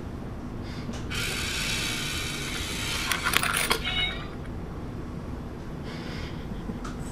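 Battery-powered cat coin bank toy's small motor whirring as its paw pulls the coin in, with a quick run of clicks about three seconds in as the coin drops and the lid shuts.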